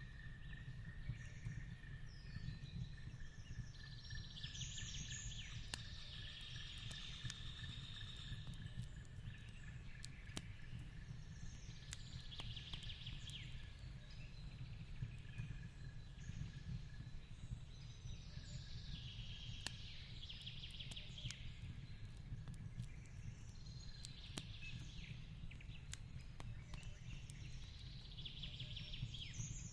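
Fireplace crackling in scattered sharp pops over a steady low rumble, mixed with forest ambience: short bird calls recurring every five or six seconds, and a thin steady high tone that fades out about halfway through.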